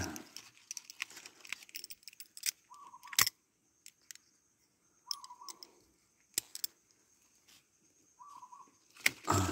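Handheld pruning shears clicking and snipping through jackfruit twigs, with leaves rustling and two sharp snaps, about three seconds in and again past six seconds. A bird gives a short call about every three seconds.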